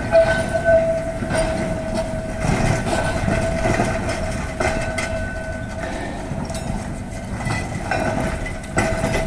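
Blackpool Balloon double-deck tram rolling slowly over depot trackwork. Its wheels give a steady high squeal that fades in and out on the curve, with rumbling and a few sharp clunks as they cross rail joints and points.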